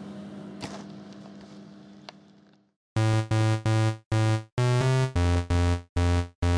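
A steady room hum fades out, with a couple of light clicks. About three seconds in, loud dubstep-style electronic music starts: synthesizer chords chopped on and off in a stuttering rhythm, about three chops a second.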